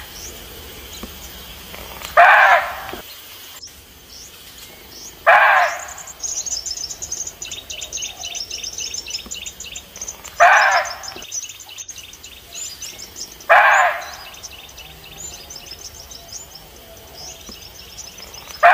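Red muntjac (barking deer) giving short, loud, single barks, five in all, one every three to five seconds. This is its alarm call, typically given when it senses a threat. Birds trill and chirp steadily behind the barks.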